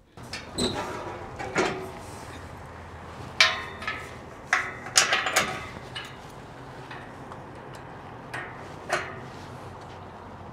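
A series of sharp knocks and clanks, about ten of them, several close together about five seconds in. Under them runs a steady low hum, typical of a semi-truck's diesel engine left idling.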